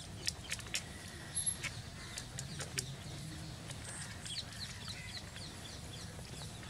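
Small birds calling outdoors: sharp, short high chips through the first few seconds, then a quick run of falling chirps about four seconds in, over a steady low hum.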